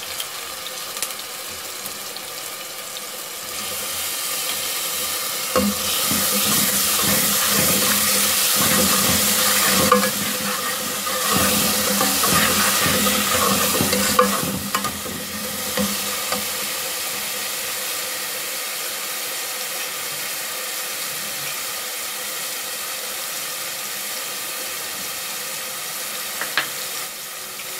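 Green chillies and tomato paste frying with onions in hot oil in a metal pot, sizzling steadily, while a steel spoon stirs and scrapes against the pot. The sizzle grows louder about four seconds in and eases back after about fifteen seconds.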